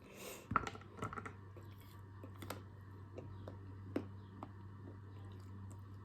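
Eating a chocolate-covered strawberry close to the microphone: a few sharp cracks as the hard chocolate shell is bitten about half a second to a second in, then chewing with scattered mouth clicks.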